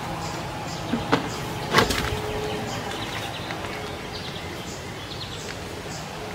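Outdoor ambience with scattered short bird chirps. Sharp knocks come about one second in and again near two seconds, the second the loudest.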